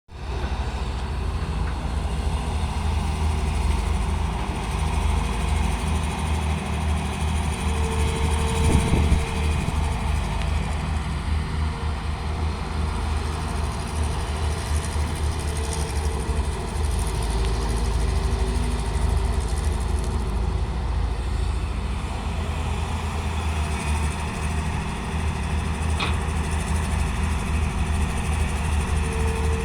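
Excavator engine running steadily, with short higher-pitched tones coming and going over it.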